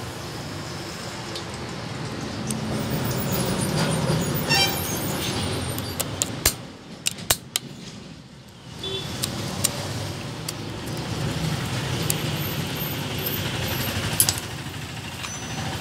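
Sharp metallic clicks of circlip pliers and a circlip on the main shaft of an Ape auto gearbox, several close together about six to seven seconds in and one more near the end. Under them, a steady rumble of vehicle traffic.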